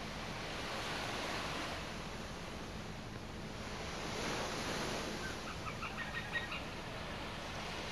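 Small waves washing onto a sandy beach, swelling twice. A bird gives a quick run of short calls about six seconds in.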